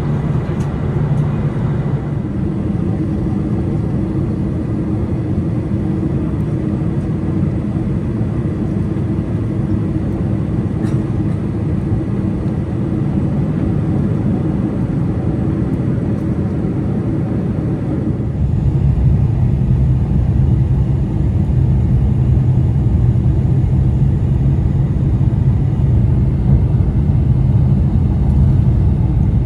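Steady cabin rumble of a Boeing 747-400 in flight, heard from a passenger seat. About 18 seconds in, the low rumble steps up and stays louder.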